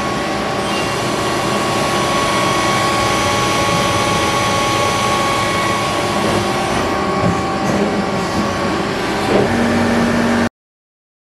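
Miyano BND-34S CNC lathe running under power: a steady machine hum with several constant high whines. It stops abruptly near the end.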